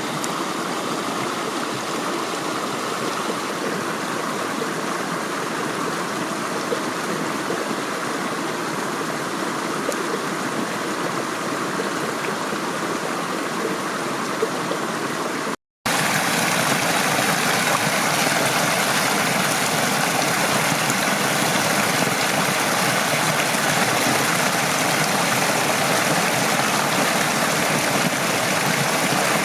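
Mountain stream running steadily. About halfway through the sound breaks off for an instant and comes back as a louder, brighter rush of water.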